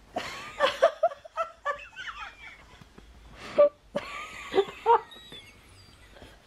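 A woman laughing helplessly in several short bursts, with brief pauses between them.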